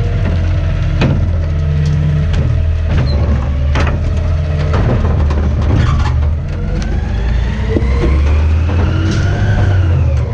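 Garbage truck's engine running steadily, with several sharp knocks and clunks and a whine that rises over a few seconds, then falls near the end.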